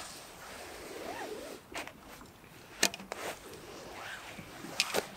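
Handling noises: rustling with a few short, sharp clicks and knocks, the sound of a carp and its net or sling being handled onto an unhooking mat.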